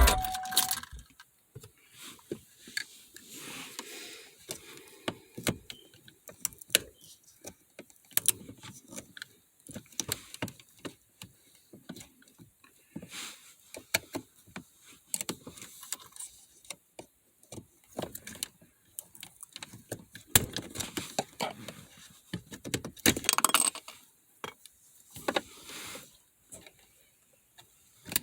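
Irregular clicks, taps and rattles of hands working plastic trim and parts around a car's gear shifter, with a louder scraping, rustling stretch near the end.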